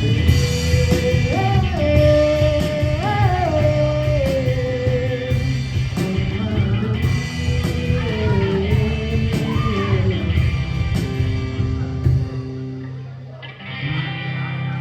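Live rock trio of electric guitar, bass guitar and drums playing, with a melody line gliding over the top. About twelve seconds in, the drums and bass drop out and the level falls, and electric guitar chords start again near the end.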